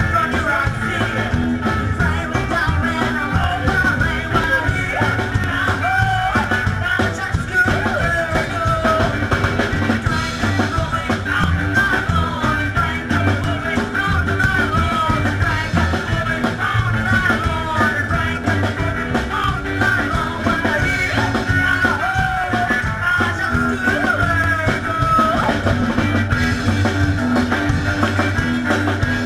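Live rock-and-roll band playing: a woman singing over guitar, upright bass and drums with a steady beat.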